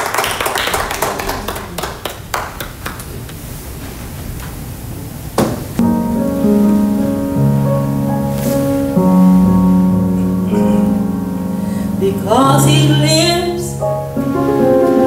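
Scattered hand claps fading out over the first few seconds, then a single knock. After that, a Nord Stage 3 stage keyboard plays sustained chords, and near the end a voice sings a short sliding run over them.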